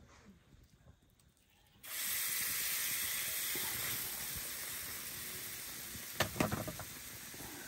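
Wet flatbread dough landing on a hot iron griddle, setting off a sudden loud sizzling hiss about two seconds in that slowly fades. A few quick knocks come about six seconds in.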